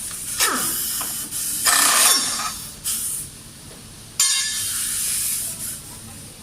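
Four bursts of hissing, one after another; the second is the loudest and the last starts suddenly and runs about a second and a half.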